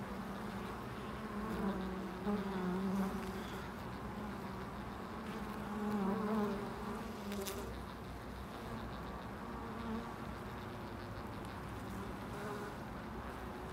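Honeybees buzzing at the hive entrance: a steady low hum that swells louder twice, about two seconds in and again around six seconds, as bees fly close.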